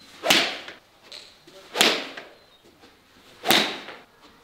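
Golf driver swung hard three times, each swing a sharp whoosh through the air about a second and a half apart.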